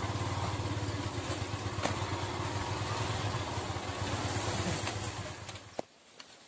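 Small motorcycle engine running steadily under way on a trail, with an even low pulsing hum. The engine sound fades and drops away about six seconds in.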